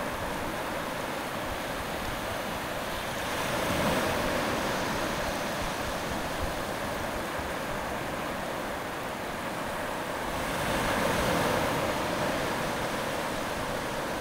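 Surf washing on a shore: a steady rushing that swells twice, a few seconds in and again near the end.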